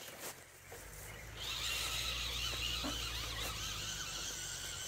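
Electric motors and gearboxes of RC crawler trucks whining as they climb, the pitch wavering with the throttle. The whine fades briefly just after the start and comes back louder about a second and a half in.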